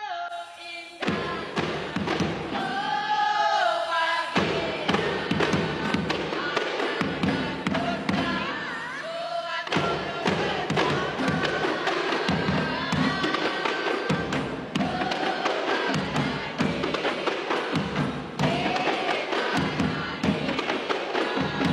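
A kompang ensemble: many Malay hand-held frame drums struck with the palm in a fast interlocking rhythm, with voices singing a melody over the drumming.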